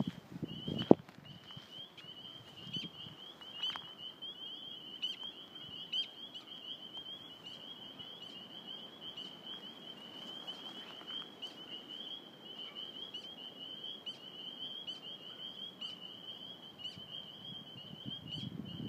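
Chorus of spring peepers: many frogs giving high, rising single peeps that overlap into a continuous shrill chorus, with separate peeps standing out above it. A sharp knock about a second in.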